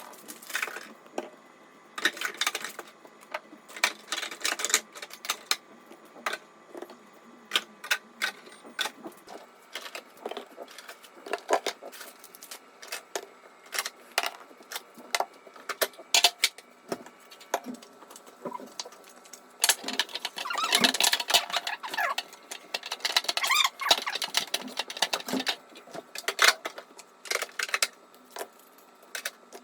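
Handling sounds from emptying and cleaning a refrigerator: irregular clicks and clatter of containers and items being picked up and set down, with a stretch of dense rustling, like packaging or wiping, about twenty seconds in.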